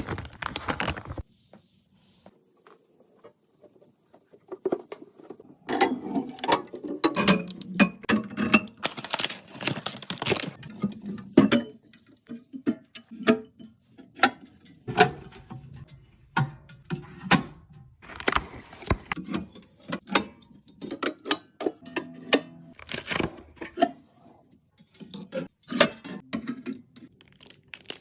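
Irregular clicks, taps and clatter of small items being handled and set down, typical of restocking and organizing a fridge.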